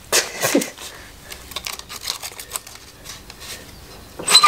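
Reel blades of an ATCO Balmoral cylinder mower turned slowly by hand past the bedknife on a strip of test paper: paper rustling and scraping with light clicks, and a short metallic ring about four seconds in. The blunt reel is barely cutting the paper.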